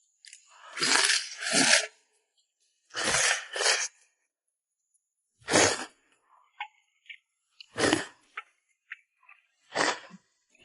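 A person slurping noodles: five short, noisy slurps a second or two apart, with small faint clicks between them.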